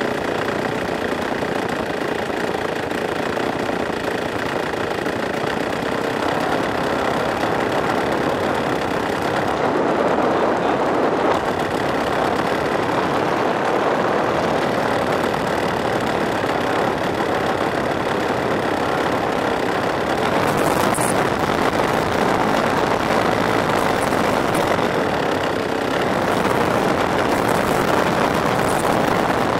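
Converted Husqvarna chainsaw two-stroke engine powering a giant-scale radio-control plane, running steadily during a taxi test, heard from a camera mounted on the plane.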